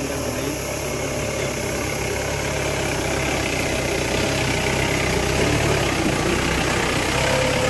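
Off-road jeep's engine running steadily, growing slightly louder over the few seconds.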